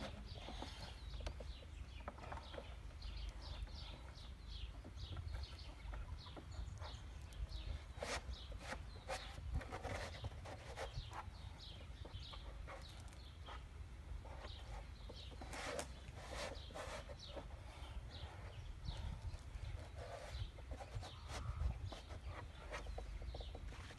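Irregular knocks and scrapes of hands and climbing shoes jamming and shifting in a wooden crack board while the climber hangs and moves upside down along it.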